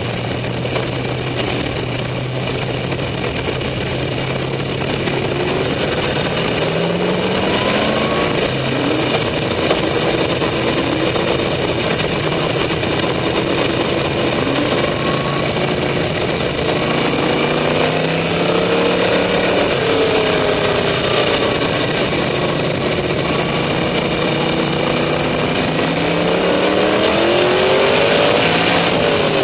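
Race car engine heard from inside the open cockpit, first idling steadily, then revving up and down in repeated rising and falling pitches as the car rolls off at low speed. Other race cars' engines are running around it.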